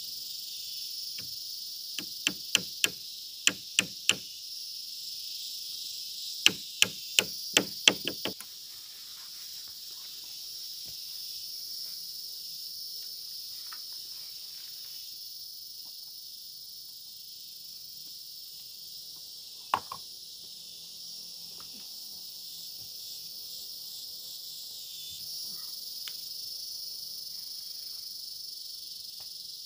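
A steady high-pitched insect chorus, crickets by the sound, with two quick runs of about six sharp knocking blows, roughly three a second, in the first eight seconds, and one more knock about two-thirds of the way through.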